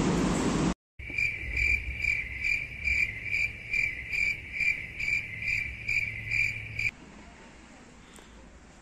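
Cricket chirping sound effect, about two chirps a second. It starts after a brief dead silence and cuts off sharply about seven seconds in, leaving faint outdoor background.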